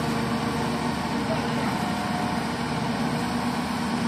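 Hyundai wheeled excavator's diesel engine running steadily under load as the arm and bucket work, a constant drone with a steady low hum.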